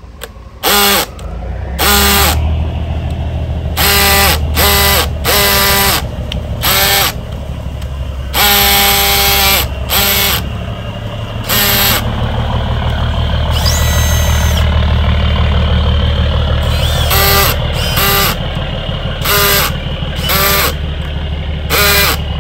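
Milwaukee M12 Fuel hammer drill/driver driving a hex-head screw into a wooden block through a hex socket bit, in drill mode with the clutch no longer slipping. The motor runs in repeated short bursts of a pitched whine, a fraction of a second to about a second each, over a steady low drone.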